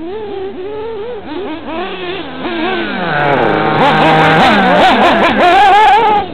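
A motorcycle engine revving up and down, its pitch swinging and growing louder, then dropping away sharply near the end.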